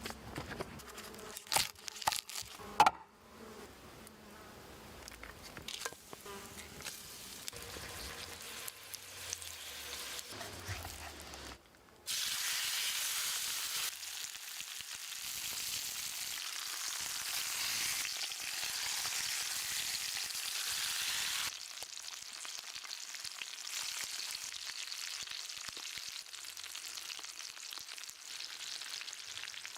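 A few sharp knocks at the start, then, after a sudden change about twelve seconds in, steak sizzling hard as it sears, easing somewhat after about ten seconds but still sizzling steadily.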